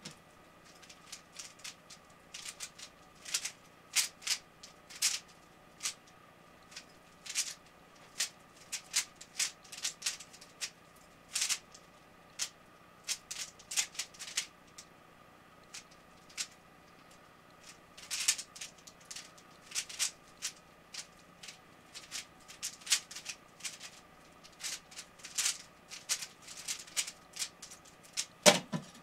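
Plastic speed cube being turned quickly by hand, giving irregular rapid clusters of clacks as the layers snap round, with the handcuff chain rattling along. A heavier knock near the end.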